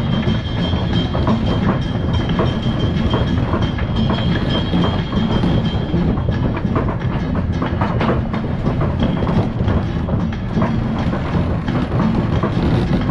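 Steady rush of wind and water on a sailing yacht under way, with irregular clicks and knocks from the cockpit.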